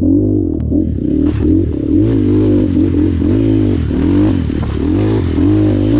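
Trail motorcycle engine revving up and down over and over, its pitch rising and falling several times a second.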